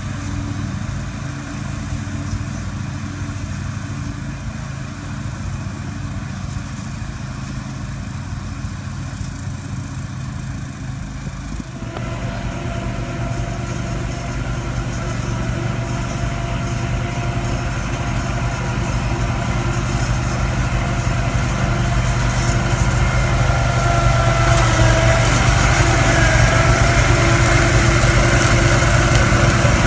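Engine noise from a tow-behind brush mower at work: a steady engine drone that shifts about twelve seconds in and then grows gradually louder.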